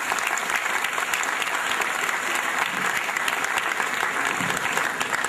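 Lecture audience applauding steadily after the closing thank-you: the dense clapping of many hands, fading out about a second after the end.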